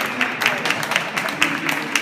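Audience clapping in a steady rhythm, about four claps a second, with voices over it.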